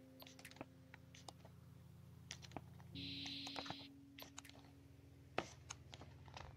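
Glossy pages of a photobook being handled and turned: scattered light paper clicks and crinkles, with a short rustle of a page sweeping over about three seconds in. Soft sustained background music plays underneath.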